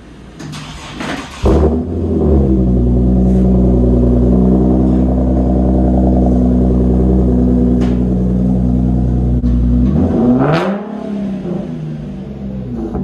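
Car engine with a custom exhaust (chopped Motordyne Y-pipe and custom resonator) starting up about a second and a half in and idling steadily, then revved once near the end, the exhaust note rising and falling.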